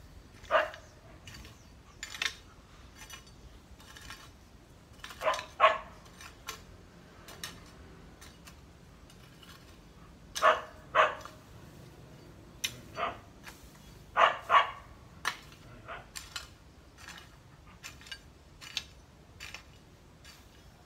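A dog barking on and off, often two barks in quick succession.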